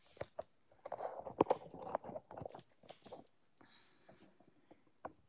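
Knocks, taps and rustling as the recording phone or camera is handled and set in place. The noises are densest between about one and two and a half seconds in, followed by a few faint clicks.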